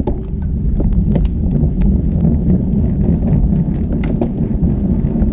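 Wind buffeting the action camera's microphone on a moving road bike, a dense low rumble with tyre noise, broken by irregular small clicks and rattles from the bike.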